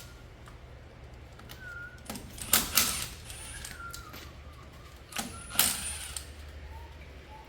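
Sharp metallic clanks and clinks of tools and brake parts being handled on the truck's hub, in two short clusters about two and a half seconds and five and a half seconds in.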